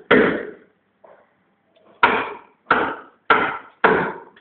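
Hammer blows: sharp knocks, each dying away quickly. One strike, a pause of over a second, then four more in a steady rhythm about two-thirds of a second apart.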